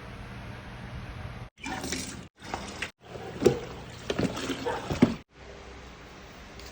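Water splashing and dripping in several short bursts that start and stop abruptly, with a couple of sharp knocks, the loudest a little past the middle.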